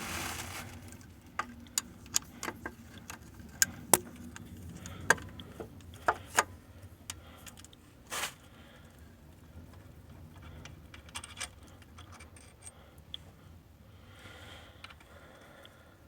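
Metal hand tools and engine parts clinking and tapping in irregular sharp strikes, with a short scrape about eight seconds in.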